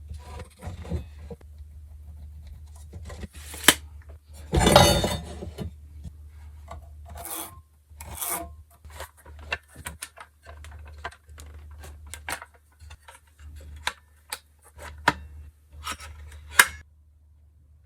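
Wood being worked by hand: rubbing and rasping strokes with scattered knocks and clicks. The longest, loudest rasping stroke comes about five seconds in. A steady low hum runs under it all.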